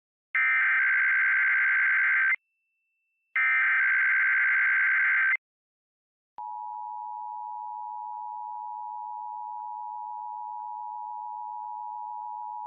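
Emergency Alert System tones for a Required Monthly Test. First come two loud bursts of buzzy SAME header data, each about two seconds long, with a second's gap between them. About six seconds in, the steady two-tone attention signal starts and holds to the end.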